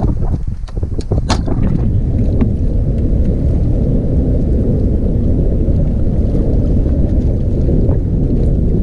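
Bass boat running across the lake: a loud, steady low rumble of wind buffeting and hull noise, with a few sharp knocks in the first second or so.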